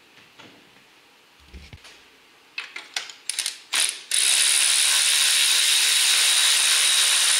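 Cordless electric ratchet backing out a loosened spark plug: a few sharp clicks as the socket goes onto the plug, then about four seconds in the motor starts and runs steadily.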